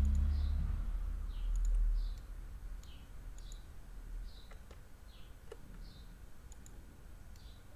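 Scattered computer mouse clicks and keyboard key presses, a few sharp clicks spread unevenly. A low rumble sounds in the first two seconds, then dies away.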